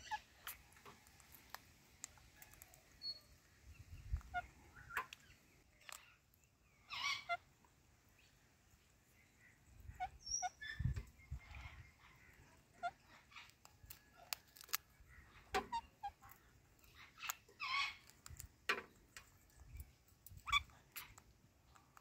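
Parakeets feeding on guava: scattered sharp clicks and small knocks of beaks biting into the fruit and feet on the wooden perch, with two short calls about seven and seventeen seconds in.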